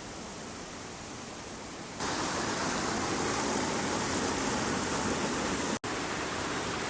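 Steady rush of a waterfall's falling water, stepping up abruptly to a louder level about two seconds in, with a split-second gap near the end.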